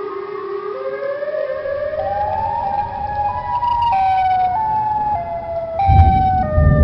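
A siren wail climbs in steps, then jumps back and forth between two pitches. A deep rumble swells in near the end.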